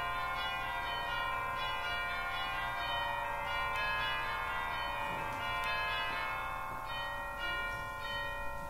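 Church organ playing slow, sustained chords with a bell-like, ringing tone, new notes sounding every second or so and fading away.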